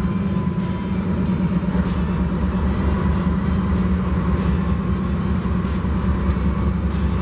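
Norfolk Southern SD70ACe diesel-electric locomotive's EMD 710 two-stroke diesel engine idling: a loud, steady low hum with no change in speed.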